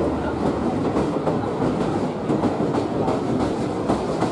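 Train wheels rumbling and clattering over the rails, heard from aboard the moving train.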